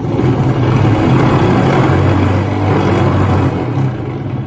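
A DIY diamond faceting machine's polishing wheel spinning, running loud with a strong low hum. It vibrates because the wheel is out of balance and not yet up to full speed.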